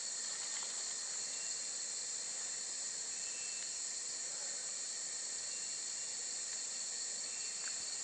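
Steady chorus of rainforest insects, a continuous high-pitched drone, with a few faint short high notes over it.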